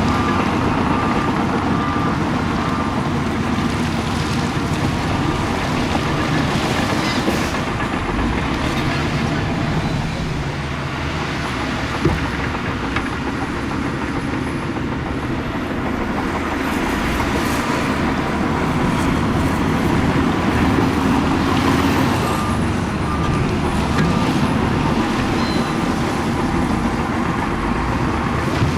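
Heavy diesel earthmoving machinery running and working under load. A reversing alarm beeps steadily near the start and again about three quarters of the way through, and there is a single sharp knock near the middle.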